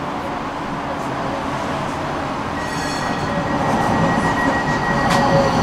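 Tram running from inside the car, a steady rolling rumble that grows louder in the second half. About halfway in, a thin, steady high-pitched wheel squeal sets in and holds. There is one sharp click near the end.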